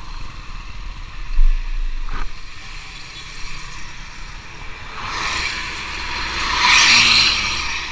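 Road traffic on a busy highway: a low thump about a second and a half in, then a passing vehicle's noise swells from about five seconds in, peaks near seven seconds and fades.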